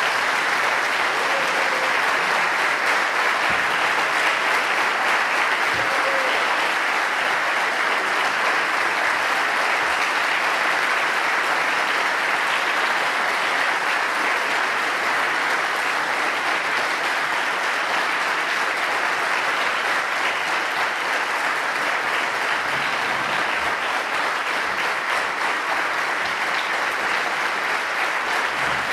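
Steady applause from a concert audience, joined by orchestra members clapping, continuing unbroken at an even level.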